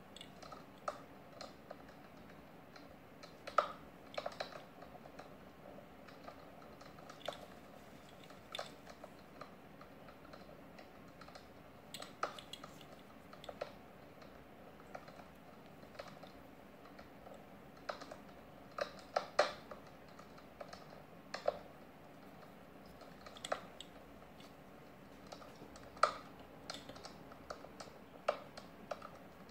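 Irregular small clicks and taps as a 1/64-scale diecast FDNY Ford sedan is turned over in nitrile-gloved hands, with the odd louder click among them.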